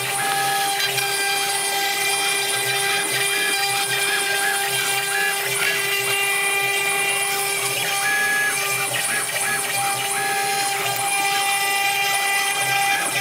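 CNC router spindle running and milling a relief into a wooden board: a steady, high drill-like whine over the hiss of cutting, with several held tones that shift and break off now and then as the machine moves.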